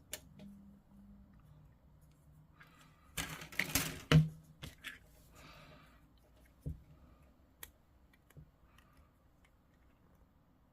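Scattered small clicks and taps of hobby tools and plastic kit parts being handled on a work surface, with a short cluster of louder clattering about three to four seconds in.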